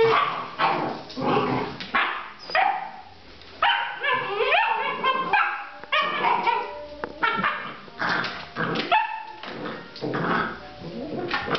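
Basset Artésien Normand puppies yapping and yelping as they play-fight, short sharp yaps coming about every half second, with higher, drawn-out yelps and whines in the middle stretch.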